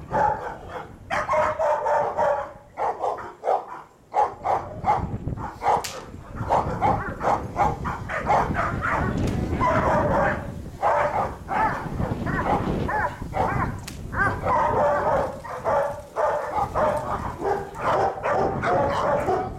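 Dogs barking in rapid repeated bursts, the aggressive barking of protection-dog bite training as a decoy agitates the dog.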